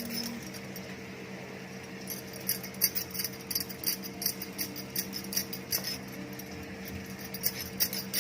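Quick irregular metallic clicks and scrapes, several a second, typical of a spatula stirring food on a flat iron tawa, over a steady low kitchen hum.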